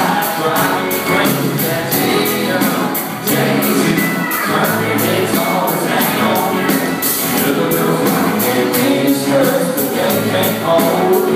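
Live country band playing with a male lead vocal sung into a handheld microphone over a steady, quick beat.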